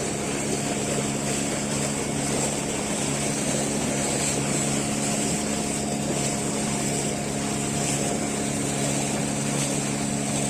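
Motorboat engine running at a steady speed: a constant hum with several steady low tones, over a hiss of water and wind.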